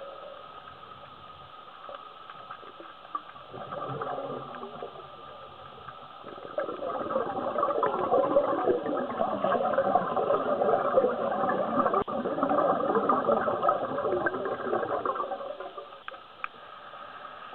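Scuba regulator exhaust bubbles gurgling and crackling past the underwater camera, briefly about four seconds in and then louder for about nine seconds in the middle, over a faint steady hum.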